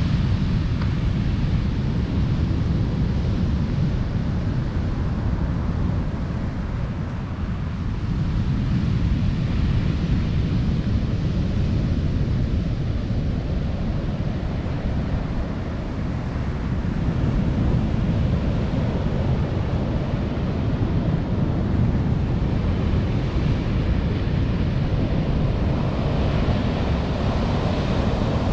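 Sea surf breaking and washing on a sand-and-pebble beach, a steady rushing that swells and eases with the waves, with wind rumbling on the microphone.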